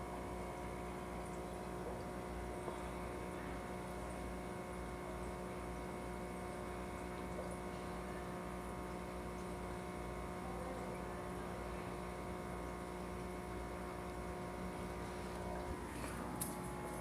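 Steady electric hum of aquarium equipment running, made of several fixed tones. A few small clicks and knocks come near the end.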